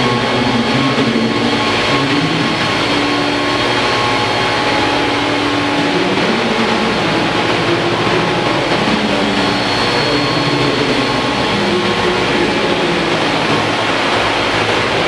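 1:5 scale Vario Bell 430 radio-controlled model helicopter in flight, its main and tail rotors and drive running steadily with a thin whine over a dense mechanical hum.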